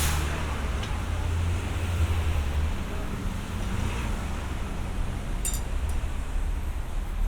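City street traffic: a passing vehicle's low engine rumble fades out after about two and a half seconds, over a steady wash of road noise, with a couple of faint clicks later on.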